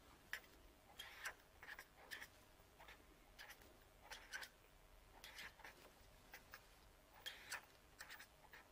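Faint scratching of a pen writing on paper, in short strokes separated by brief pauses.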